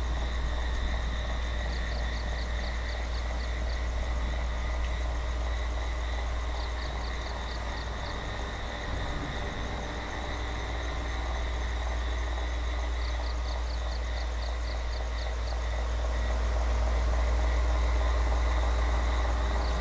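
Noisy old electric table fan running: a steady low hum with a thin whine above it, and three runs of fast, high ticking; the hum grows louder near the end.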